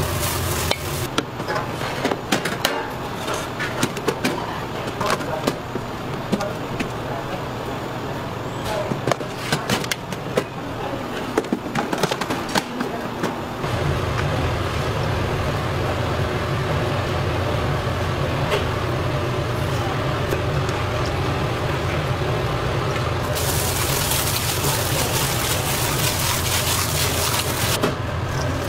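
Food being handled and mixed in a bowl: irregular clicks, knocks and rustling as bean sprouts are tossed. About halfway through it cuts to a steady low hum with occasional utensil taps.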